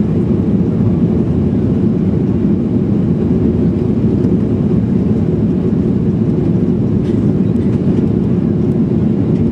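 Steady cabin noise inside a Boeing 737-800: its CFM56 turbofan engines and the airflow around the fuselage as a constant low rumble.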